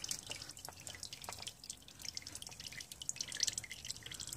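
Used engine oil dripping from a loosened oil filter into a drain pan: faint, irregular drips.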